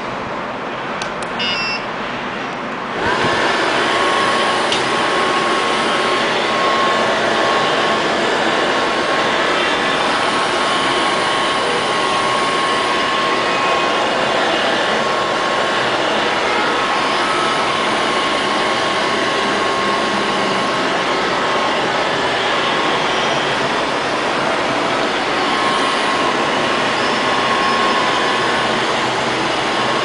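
Robot vacuum cleaner switched on at its control panel, with a few short beeps, then about three seconds in its suction motor starts up: a loud steady rushing noise with a high whine through it that keeps running as the robot cleans.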